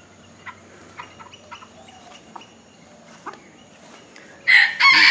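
Chickens clucking softly every so often, then near the end a rooster crows loudly and suddenly.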